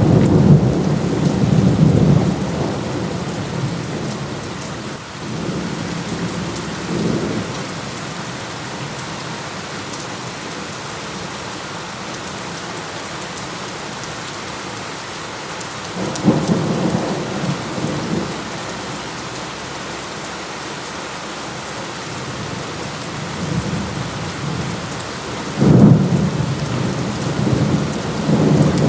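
Heavy rain falling steadily, with rolls of thunder. One rumble runs at the start, a short one comes about seven seconds in, another starts suddenly about sixteen seconds in, and a loud one comes near the end.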